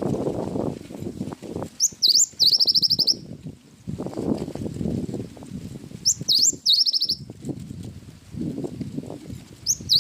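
Gelatik batu (cinereous tit) singing a repeated phrase: two sharp sweeping whistled notes followed by a fast high trill, about every four seconds. It comes twice in full and starts again at the end. Between phrases a low, uneven background noise swells and fades.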